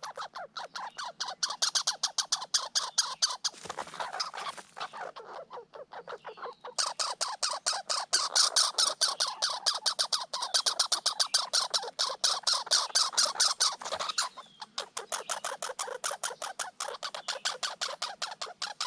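Red squirrels chattering: long runs of rapid, rattling calls, the territorial scolding of squirrels fighting over food, with a pause about five seconds in.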